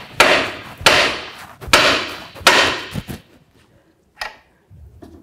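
Hammer blows on the steering knuckle where the outer tie rod end's tapered stud sits, struck to shock the taper loose. Four metallic strikes come about 0.8 s apart, each ringing out, and a short, softer knock follows near the end.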